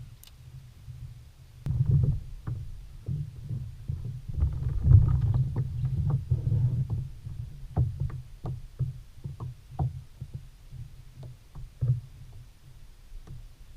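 A kayak moving on water: a low, uneven sloshing rumble of water against the hull, with irregular light knocks and clicks.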